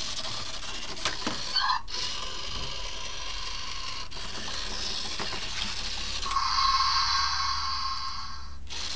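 Zhu Zhu Pets robotic hamster toy's small motor whirring as it runs along its plastic track. A steady pitched tone joins in from about six seconds in and stops near the end.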